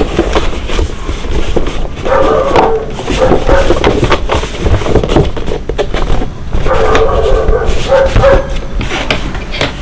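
A dog whining and yipping in short bouts, twice, over clicking and rustling.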